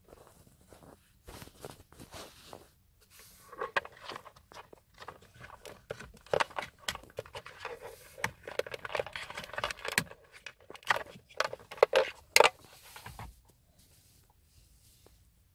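A Ford Mondeo Mk4 Bluetooth module's plastic case and wiring plug being handled: irregular clicks, scrapes and rustling. They are busiest in the middle, with a few sharp clicks, and die away near the end.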